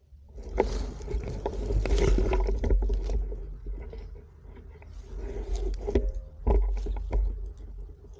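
Rustling and scraping in dry leaves and grass, with knocks of handling noise, as the rifle-mounted camera is shifted on the ground. The noise comes in two spells, from about half a second to three seconds in and again around five to seven seconds.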